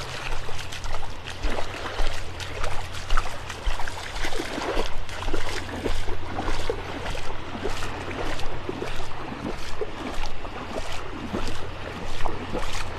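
Footsteps splashing through shallow seawater at a walking pace, about one step every two-thirds of a second, each one a short slosh of water.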